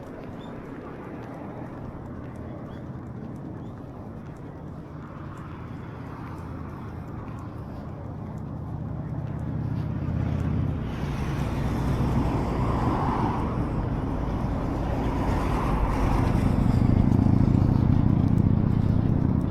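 Road traffic: motor vehicles passing with a low engine and tyre rumble. It swells from about halfway through and is loudest near the end.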